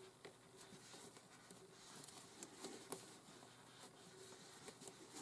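Near silence, with faint soft rustling and small ticks of thick cotton cord being drawn through stitches with a crochet hook.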